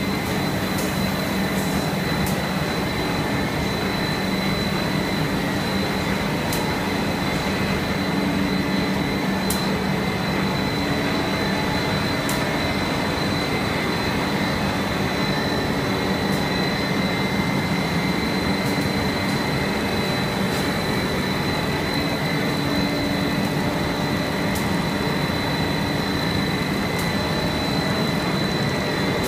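PET sheet extrusion line running: a steady industrial machinery drone with a constant high whine over a low hum, and a few faint clicks scattered through.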